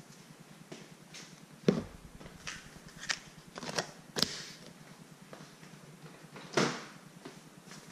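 Utensil scraping and tapping on a sheet of aluminium foil on a countertop while butter spread is smoothed over it: a string of scattered light clicks and knocks, a few of them sharper, around two, four and six and a half seconds in.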